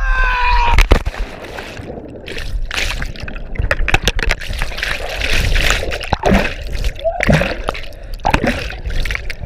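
A brief cry falling in pitch, then a loud splash just under a second in as the jumper hits the lake, followed by muffled underwater bubbling and gurgling as he sinks and rises back toward the surface.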